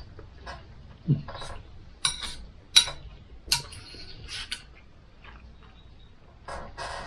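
Knife and fork clinking and scraping on a plate as a piece of steak is cut, with a few sharp clicks of metal on the plate between about two and four and a half seconds in.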